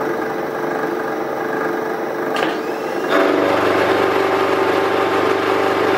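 Vertical milling machine running in back gear, its gears whining steadily while a half-inch carbide roughing (corn cob) end mill cuts the flange of a steel channel iron. The machining sound gets louder and fuller about three seconds in.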